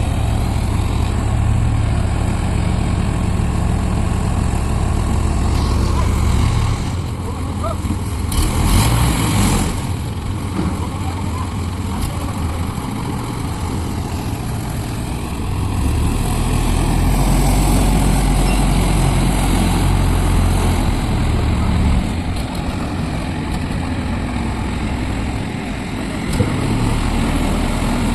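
Heavy diesel engine of a lifting machine unloading plant equipment, running steadily with its revs changing. A brief rush of noise comes about eight seconds in, and the engine runs louder from about sixteen to twenty-two seconds.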